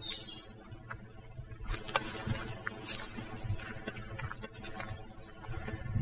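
Footsteps on a gravel path with a few sharp clicks, the loudest about three seconds in.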